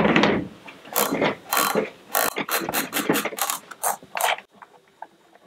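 Fore-end cap of a Beretta A400 xCel semi-automatic shotgun being unscrewed by hand, clicking as it turns: a run of sharp ratcheting clicks, about three a second, that stops about four and a half seconds in.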